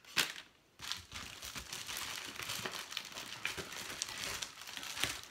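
Packaging crinkling and rustling as hands rummage through a delivery box of chilled groceries, after a short sharp click near the start.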